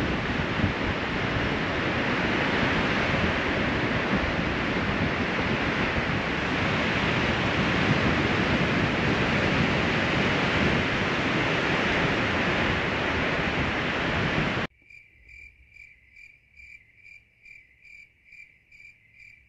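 Steady rush of surf and wind that cuts off suddenly about fifteen seconds in. Then a cricket chirps steadily, much quieter and high-pitched, about three chirps a second.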